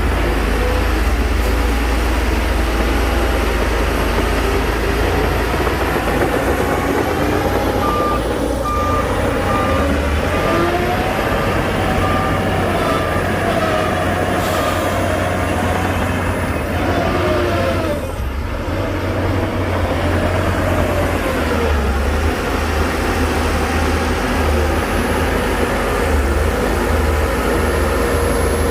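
Heavy diesel earthmoving machinery, a bulldozer working alongside a dump truck, running under load with the engine note rising and falling. A reversing alarm beeps steadily for several seconds in the middle.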